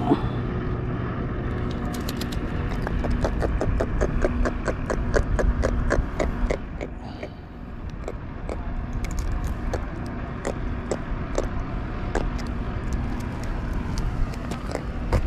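Quick runs of light clicks and taps as a small freshly caught trevally is handled and unhooked with a fish gripper and pliers on concrete, over a steady low rumble.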